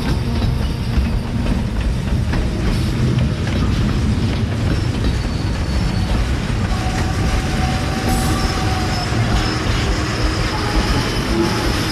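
Freight train of centerbeam flatcars loaded with lumber rolling past at close range: a steady heavy rumble of wheels on rail with clacking over the joints and faint thin wheel squeals.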